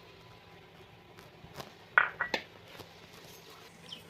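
Light knocks and clicks of a kitchen utensil against a cooking pot over quiet room tone, the sharpest one about two seconds in with two smaller clicks just after.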